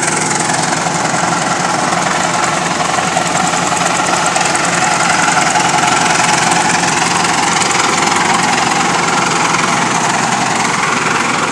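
An engine running steadily and loudly at a constant speed.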